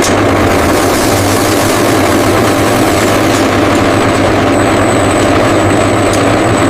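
Factory processing machinery running steadily: a loud, even mechanical noise over a low hum.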